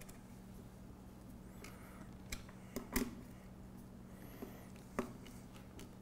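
A hex screwdriver tightening screws into a metal bracket on a robot chassis: a handful of light clicks and taps of tool on metal, the loudest about three seconds in, over a faint steady hum.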